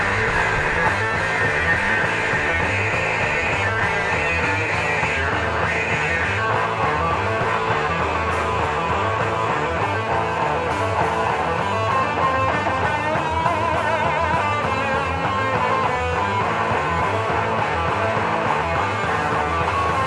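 Live rock band playing: electric guitars, bass guitar and a drum kit.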